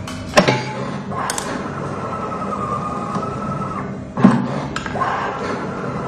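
Coaxial cable stripping machine running through its cycle: a couple of sharp clacks, then a steady motor whine for about two and a half seconds. The clacks come again about four seconds in, and the whine starts up once more.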